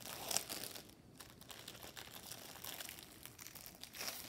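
Clear plastic wrap around a rolled diamond painting canvas crinkling as it is handled, in irregular rustles, the loudest about half a second in and another near the end.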